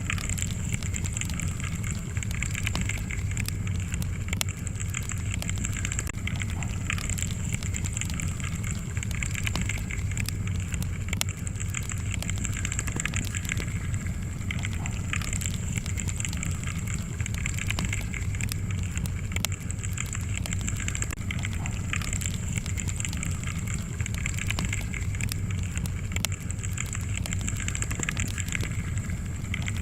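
Fire in a fireplace crackling: frequent small sharp pops over a steady low rumble.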